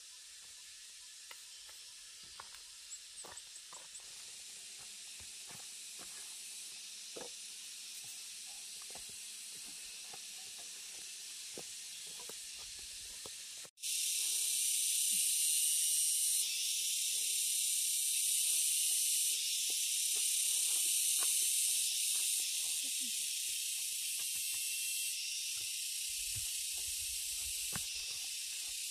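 Cicadas droning steadily as a high, even hiss, louder after a cut about halfway through, with scattered light knocks of wooden beams and planks being handled.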